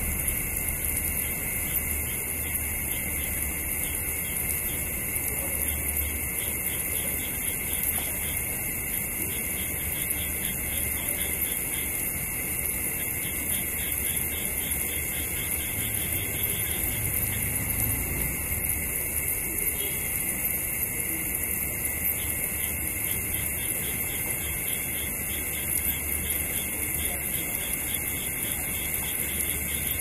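Night chorus of crickets and frogs: a steady, dense, high-pitched drone with a rapid pulsing call running through it, over a faint low hum.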